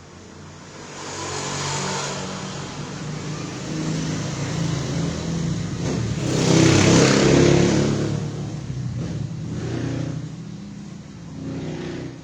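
A vehicle engine, growing louder to its loudest about seven seconds in and then fading off.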